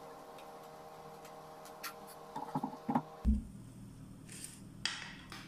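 Hot oil frying sfenj dough rings in a saucepan, faint under a few light ticks and clinks of a utensil, with one sharp knock about three seconds in and brief rustling bursts near the end.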